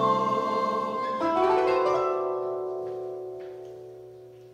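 Music ending on a plucked-string instrument: a chord sounds about a second in and rings on, slowly fading away.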